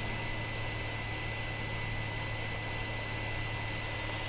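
2008 iMac's internal cooling fans running at full speed, a steady loud fan noise with a low hum and a thin high tone. The fans race with only one browser window open in a room below 70 °F, even after all three fans were replaced; the owner suspects a damaged logic board that controls the fans.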